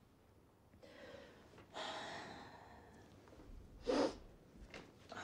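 A man breathing heavily and unevenly into his hands: a long breathy exhale about two seconds in, then a short, sharp intake about four seconds in, the loudest sound.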